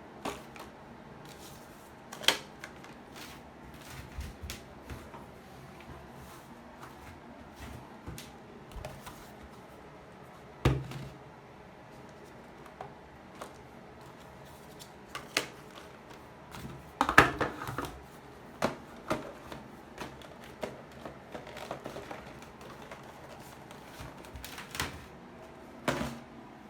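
Irregular light clicks and knocks of small objects being handled, with a duller thump about eleven seconds in and a busier cluster of clicks around seventeen seconds.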